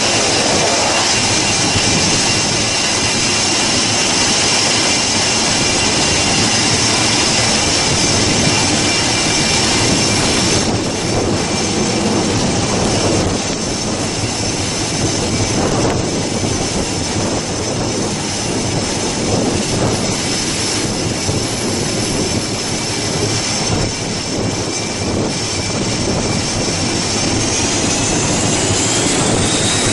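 Grumman C-2 Greyhound's two Allison T56 turboprop engines running at high power while the aircraft is held on the carrier catapult before launch: a steady loud roar with high-pitched whining tones. Near the end the whine rises in pitch.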